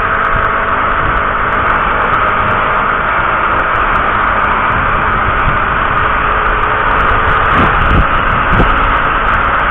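Steady engine and road noise heard from on board a moving vehicle, with a few low thuds near the end.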